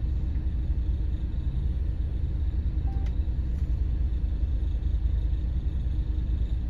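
Steady low rumble of a vehicle engine idling close to the microphone, even in level throughout.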